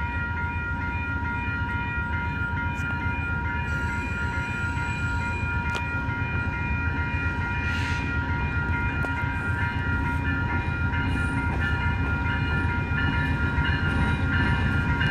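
Railroad crossing bell ringing steadily as a VIA Rail P42 diesel locomotive approaches. The locomotive's low rumble grows louder toward the end.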